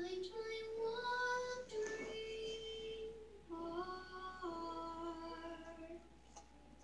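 A young girl singing a slow melody in two phrases of long held notes, played back from a music video through room speakers.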